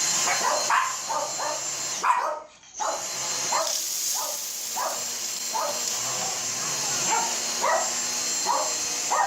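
Dyson DC62 cordless stick vacuum running on carpet with a steady high-pitched whine, cut out briefly about two seconds in and switched back on, while a dog barks repeatedly over it.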